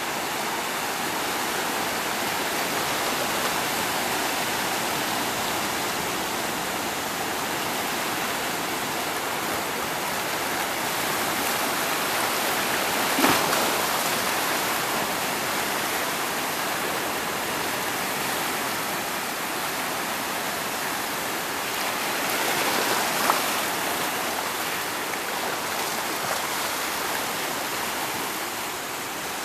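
Small sea waves washing in over a rocky shore, a steady rush of surf. Two brief clicks stand out, one about halfway through and one about three-quarters of the way in.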